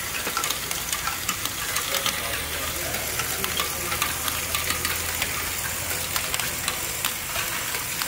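LEGO Great Ball Contraption modules running: plastic Technic mechanisms and small plastic balls clattering with a dense stream of irregular little clicks and ticks. A low steady hum joins for a few seconds in the middle.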